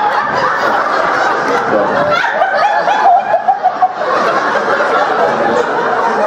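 Theatre audience laughing, many voices at once, with one nearby person's pulsing laugh standing out a couple of seconds in.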